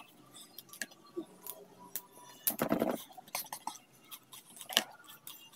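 A person eating by hand: chewing and mouth noises, with scattered small clicks and taps and a louder mouth sound about two and a half seconds in.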